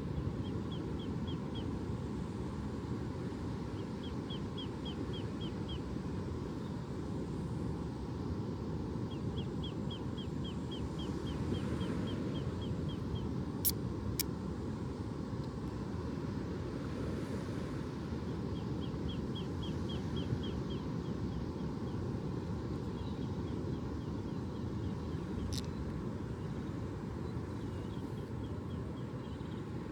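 Steady low outdoor rumble with a small bird repeating short, rapid trills of high chirps, several runs spread through. Two sharp clicks just before the middle and one more later.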